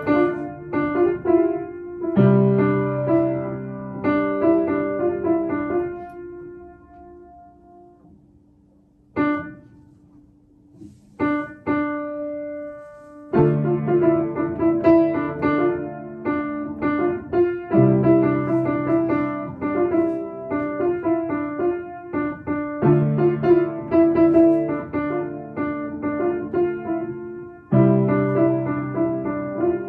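Upright piano played by a young child. A phrase is played, the notes die away into a pause about a third of the way in, a few single notes follow, and then steady playing resumes with a repeating pattern.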